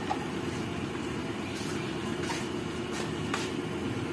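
Steady low rushing hum of a stove burner heating a covered frying pan in which chicken and pork are boiling, with a few faint ticks.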